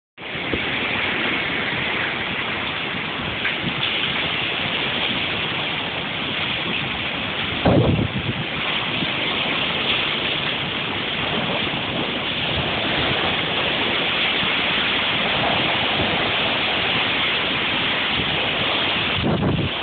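Cyclone wind and rain, a steady rushing noise without let-up. A gust buffets the microphone about eight seconds in, the loudest moment, and again near the end.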